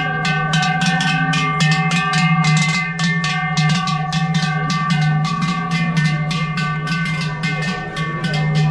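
Several large cowbells clanging together in a steady rhythm, about four to five strokes a second, their different pitches ringing on together as a sustained chord.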